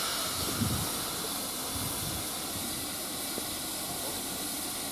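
Steam hissing steadily from GWR Castle class 4-6-0 no. 4079 Pendennis Castle, with a couple of low thumps about half a second and two seconds in.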